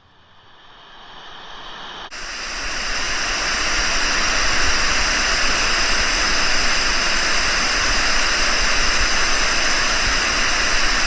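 Loud, steady rushing hiss that swells up over the first few seconds, turns suddenly brighter about two seconds in, and then holds level.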